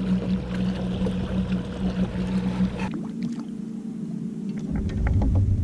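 Electric kayak motor (Haswing Protruar trolling motor) running with a steady hum and water noise. The hum cuts off abruptly about three seconds in, and a deeper rumble starts near the end.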